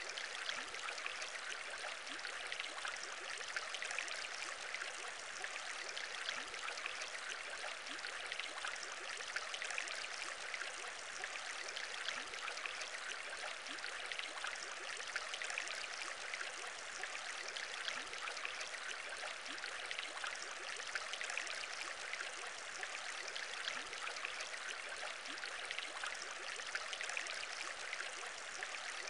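Steady aquarium bubbling: a dense, unbroken stream of small bubbles in water, many tiny bubble sounds overlapping at an even level.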